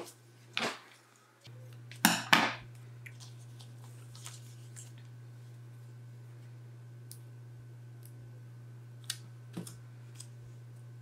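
Scissors snipping through a clear sticker, three short cuts in the first few seconds, then faint ticks and rustles as the sticker is peeled and pressed onto the planner page. A steady low hum runs underneath.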